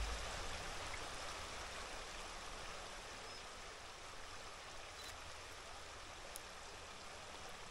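Small stream running steadily, an even rush of water.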